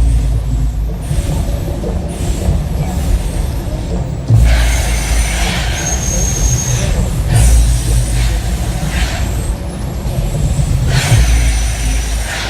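The Mirage volcano show's effects: a deep rumbling that surges at the start, about four seconds in and near the end, with bursts of hissing over it.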